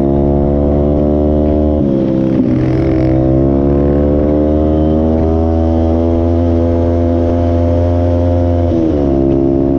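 Off-road vehicle engine running as it is ridden on a trail. Its pitch drops sharply about two seconds in and again near the end, and climbs slowly in between.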